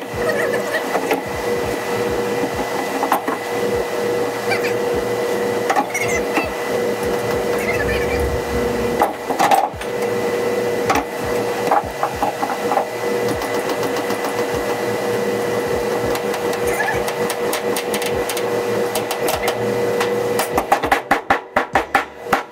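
A steady machine hum, with scattered knocks and clicks as a long metal bar is handled and set against a car body's trunk opening, and a quick run of clicks near the end.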